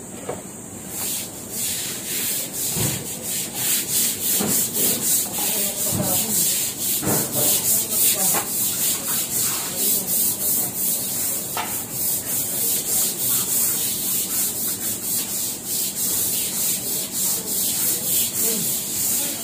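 Stiff-bristled push broom scrubbing wet ceramic floor tiles back and forth in a steady rhythm of about three strokes a second, starting about a second in. This is scrubbing off dried paint drips softened with acetone.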